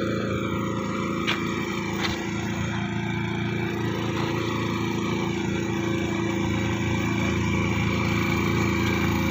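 A small engine running at a steady speed, with a couple of faint clicks in the first two seconds.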